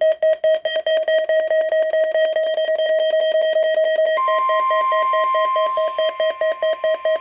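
Electronic alert tones of a NOAA Weather Radio test: a rapid, buzzy beeping tone, joined about four seconds in by a steady higher tone that holds under the beeping.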